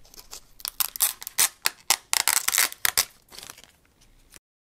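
Clear protective plastic film being peeled off the front of a small camera: a quick run of crinkling, crackling snaps that stops about three and a half seconds in.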